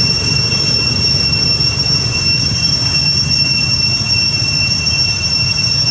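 Insects droning steadily outdoors as one high, even whine, over a constant low rumble.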